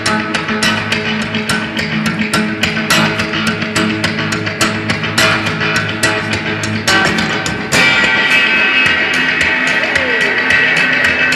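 Acoustic guitar played in a fast, rhythmic, percussive picking pattern of about three or four strokes a second. About eight seconds in it turns louder and brighter, with held ringing notes over the rhythm.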